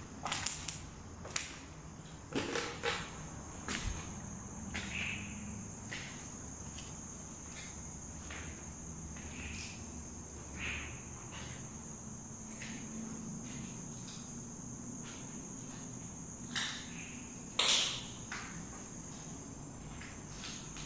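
Crickets chirring steadily at a high pitch, with scattered light knocks and footfalls, the loudest a sharp knock about seventeen seconds in.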